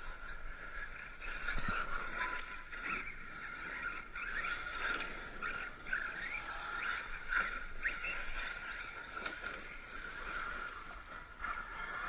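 Electric RC buggy running over forest ground, its motor whining in short bursts that rise and fall with the throttle, with the odd scrape and click from the chassis and tyres.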